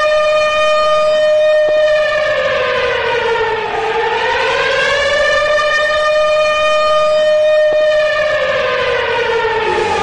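Brampton Battalion hockey goal horn sounding one long, unbroken blast that sags in pitch about three seconds in, climbs back, and begins to fall again near the end.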